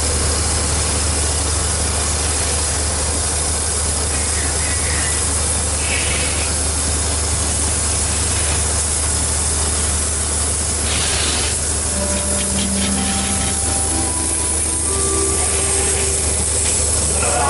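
Water jet from a pressure-washer hose spraying the outside of a railway carriage and its windows: a steady hiss over a constant low hum.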